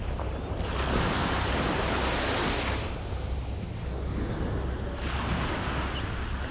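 Small waves washing up on a sandy beach, the surf swelling and fading: one surge from about half a second to nearly three seconds in, another about five seconds in. A low wind rumble on the microphone runs beneath it.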